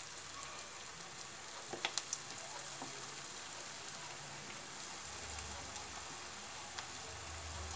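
Hot oil sizzling steadily as cabbage Manchurian dough portions are dropped into a kadhai and deep-fry one by one, with a few sharp clicks about two seconds in.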